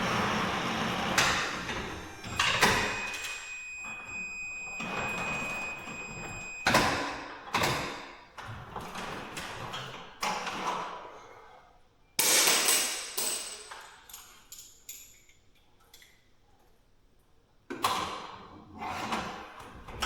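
Garage door hardware being worked on by hand: a string of separate metal knocks and clanks from the rollers, door and track. About two seconds in, a steady high whine starts and holds for about four seconds.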